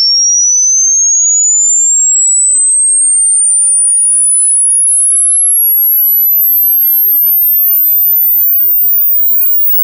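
Headphone test signal: a pure sine-tone sweep, one thin whistle rising steadily from high to very high pitch, fading out near the end.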